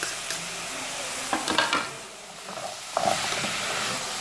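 Sliced calabresa sausage, onion, garlic and freshly added chopped tomato sizzling in a pot, stirred with a silicone spatula. The sizzle dips about halfway through and grows louder again as the stirring picks up near the end.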